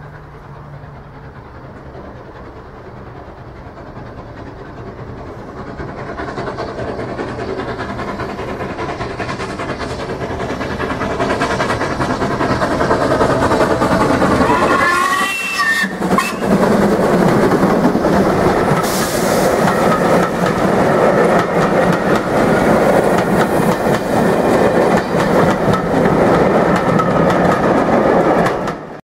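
A train approaches, growing steadily louder for about fourteen seconds, then runs past close by with a loud rush and the clatter of wheels on rail joints. The sound cuts off suddenly near the end.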